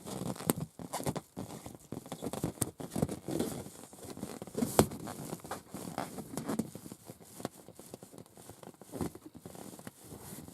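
Long acrylic nails scratching and tapping on an inflated rubber balloon: irregular squeaky rubbing and crinkly scrapes with frequent light taps, one sharper tap about halfway through.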